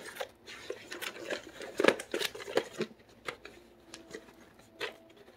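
Plastic and paper packaging of a DVD box set being handled and searched through: irregular clicks, taps and rustles.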